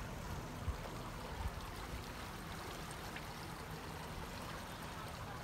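Steady wash of harbour water lapping along the quay, with a low rumble underneath.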